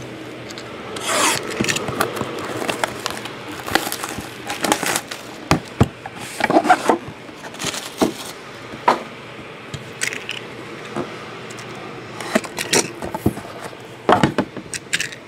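Plastic shrink wrap being pulled off a sealed cardboard trading-card box, followed by handling of the box: scrapes, rubs and sharp knocks of cardboard as it is opened and the inner box slides out near the end.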